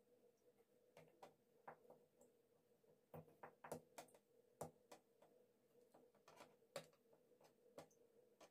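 Near silence with faint, scattered light taps and clicks as soft rice-dough rolls are set one by one onto a greased, perforated aluminium steamer tray, over a faint steady hum.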